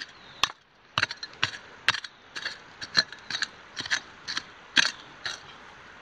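Hand digging tool striking and scraping into rocky, gravelly ground, about two strokes a second, with stones clinking.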